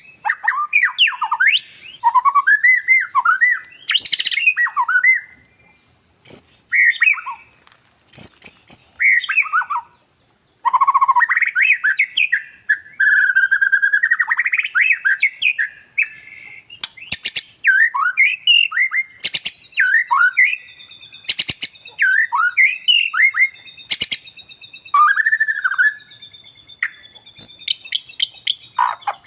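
Oriental magpie-robin (kacer) singing in full voice: rapid, varied whistled phrases with rising and falling notes, given in bursts separated by brief pauses, with a few sharp clicks.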